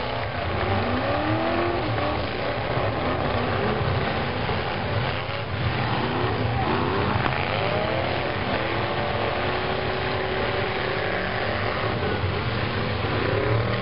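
Engines of several old pickup trucks revving hard at once in a demolition derby, their pitches rising and falling over each other without a break.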